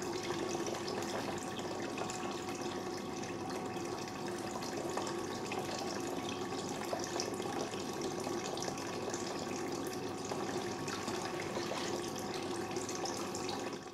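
Water running steadily through a small tabletop flume, over a steady low hum.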